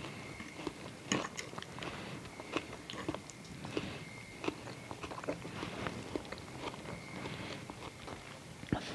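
Someone eating: chewing, with a metal fork clicking and scraping against a clay plate in short, irregular taps.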